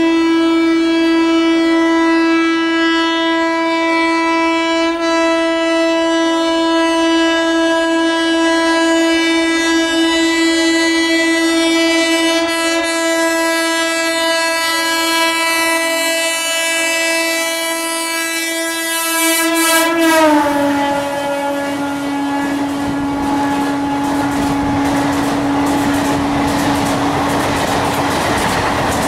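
A WAP-4 electric locomotive's horn sounding one long unbroken blast as the express approaches at over 100 km/h. About twenty seconds in, the pitch drops as the locomotive passes, and the horn goes on at the lower pitch until near the end over the rushing clatter of the coaches passing at speed.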